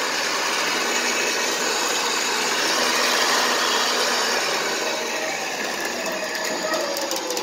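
Battery-powered electric winch on a car trailer running steadily, its motor and gears pulling a car up the ramps. Its pitch sags a little near the end.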